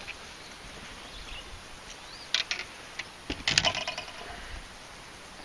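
Handling noise as a just-landed largemouth bass is picked up off the boat deck and unhooked. A few sharp clicks come about two and a half seconds in, and a louder cluster of knocks and clicks around three and a half seconds in.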